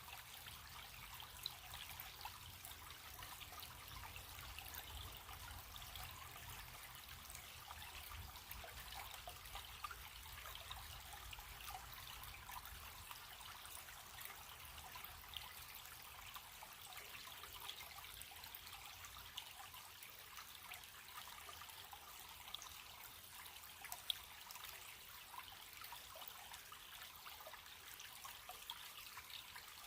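Running stream: a steady, faint trickling babble of water full of small drips and splashes.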